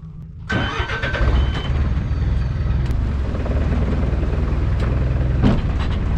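A motorboat underway: its engine running at speed with the rush of water and wind, starting suddenly about half a second in. A brief high steady tone is heard near the start.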